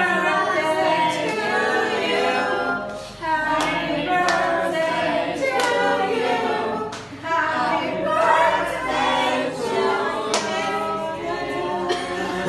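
A group of people singing a song together, unaccompanied, with a few claps.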